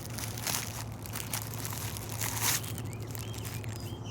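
Plastic wrapping crinkling as it is handled around a lump of plumber's putty, for about two and a half seconds, then dying down.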